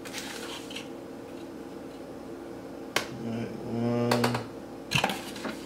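Plastic scoop working whey protein powder out of a tub and into a blender jar: a soft rustle of powder at the start, then sharp clicks about three seconds in and again about five seconds in as the scoop knocks on the rim. A short low hummed voice sits between the two clicks.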